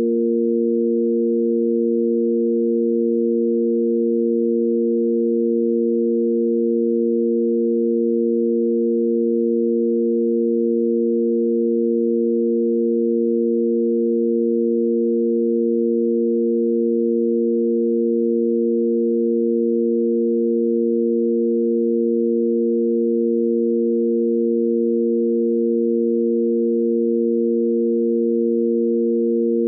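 Sine-wave tanpura drone in A#: three pure, steady electronic tones sounding together on the root, fifth and octave (A#, F and the A# above), held unchanged throughout.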